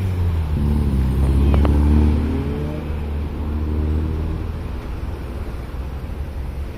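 Cars driving past close by through an intersection. One engine's note rises as it accelerates past, loudest about two seconds in, then fades after about four and a half seconds, leaving a steady traffic rumble.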